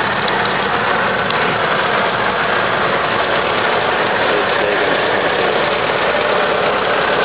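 McCormick Farmall tractor engine running steadily as the tractor drives past at close range.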